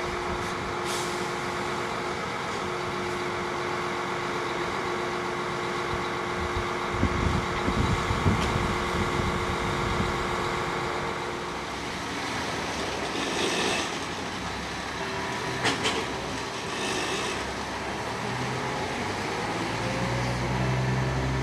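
Dresden suspension railway running: a steady mechanical hum with a held tone, low rumbling about seven to nine seconds in, and a few short clicks and squeaks later on.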